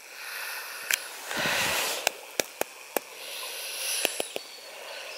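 Breathy hiss close to the camera microphone, with a louder, deeper swell about a second and a half in and a scatter of sharp clicks from handling the camera while filming.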